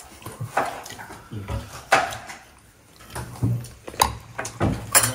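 A metal spoon clinking and scraping against a glass bowl as a soy-marinated egg and its marinade are scooped out: a handful of separate light clinks.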